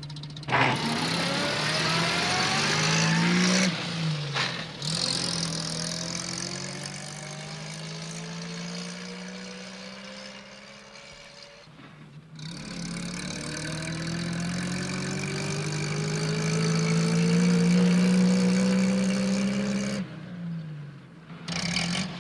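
A small red post van's engine running as it drives, its pitch climbing in three long pulls that break off about 4 and 12 seconds in, then dropping away near the end as the van slows to a stop.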